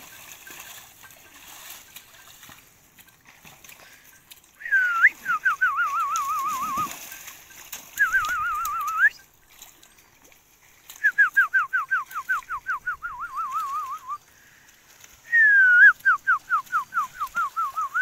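A person whistling to cattle: four loud whistled calls, each opening with a quick glide and then breaking into a fast warbling trill that drifts downward in pitch.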